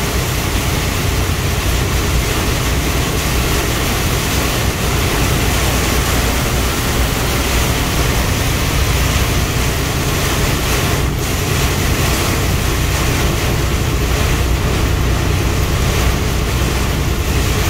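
Pouring rain beating on a truck's windshield and cab, heard from inside the cab as a steady dense hiss, over the low rumble of the truck's engine and tyres on the wet road.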